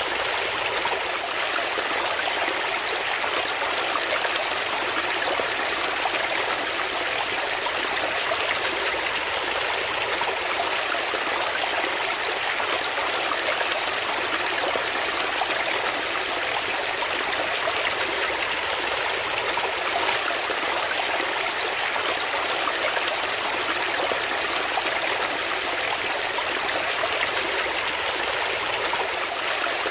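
A small brook splashing and rushing steadily over rocks in a shallow cascade, an even, unbroken water noise with no other sounds.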